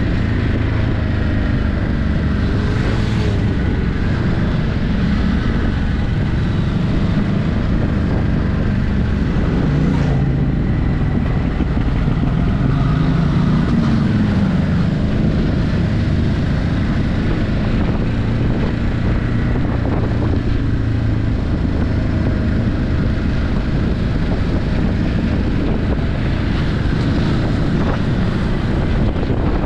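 Ducati Hypermotard 950's L-twin engine on its stock exhaust, heard on board while riding, with wind buffeting the microphone. Engine pitch rises and falls around the middle as the throttle changes.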